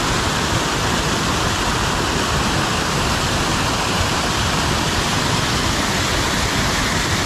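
Waterfall pouring down a rock face close up: a steady rush of falling water.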